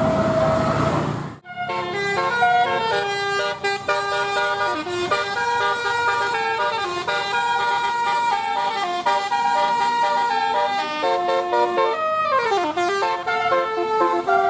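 Indonesian bus's multi-tone musical horn (a "telolet" horn) playing a melody of held notes that step from pitch to pitch, starting after a short break about a second and a half in. Near the end a note sweeps down in pitch before the tune carries on.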